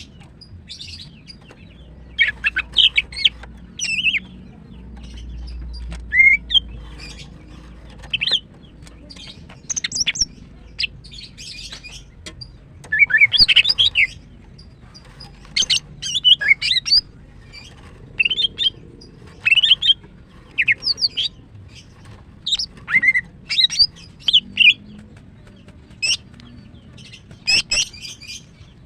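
Female greater green leafbird (cucak ijo) calling in short, loud bursts of high chirps and warbled notes, a burst every second or two.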